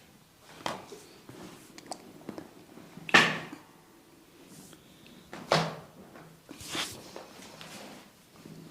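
Hand strikes of a head massage, four sharp hits spaced unevenly with small clicks between them; the hit about three seconds in is the loudest.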